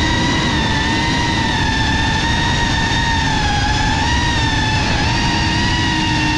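Small FPV cinewhoop drone's motors and propellers whining at a steady high pitch that wavers slightly, over a low rushing noise.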